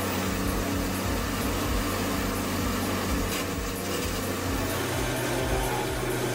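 Morbark 1300 tub grinder running, a steady engine drone that holds the same pitch throughout.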